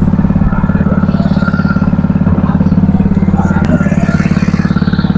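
An engine aboard a small fishing boat running steadily at constant speed with a fast, even beat.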